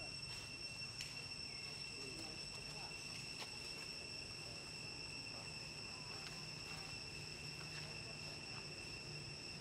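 Insects trilling steadily in the forest: one unbroken high ringing tone, faint, over a low background hum with a few soft clicks.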